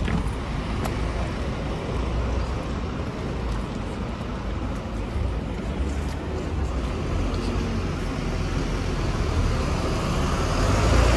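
Rail replacement bus running, a steady engine and road rumble that grows louder near the end.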